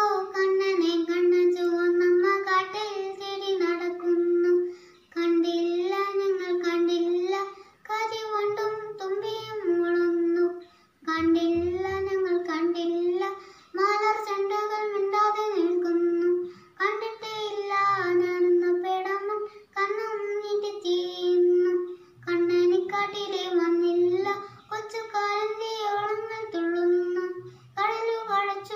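A young boy singing a Malayalam children's poem unaccompanied, in sung phrases a few seconds long with short pauses for breath between them.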